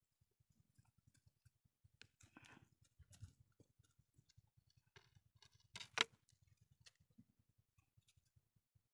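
Near silence with a few faint scattered clicks and rustles, and one sharp click about six seconds in.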